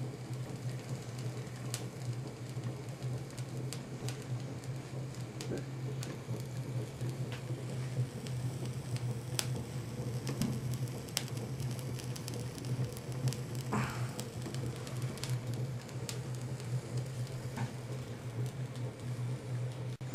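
Small homemade Stirling hot-air engine running steadily: a constant low hum with an even hiss and scattered light ticks.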